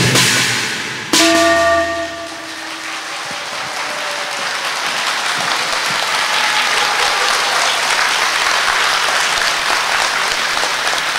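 The accompaniment ends with one last struck note about a second in, ringing briefly. Audience applause then builds and carries on steadily.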